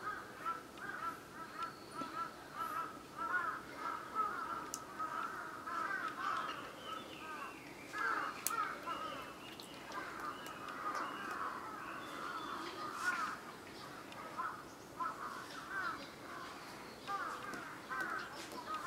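Many birds chattering together, a dense run of short chirping calls several times a second, with a few faint sharp clicks in among them.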